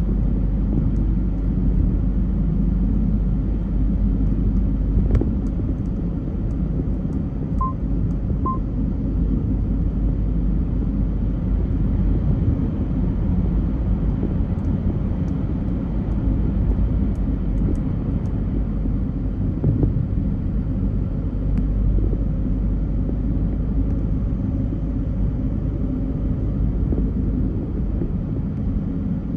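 Car driving in rush-hour traffic: a steady low rumble of engine and road noise, with two short beeps about eight seconds in.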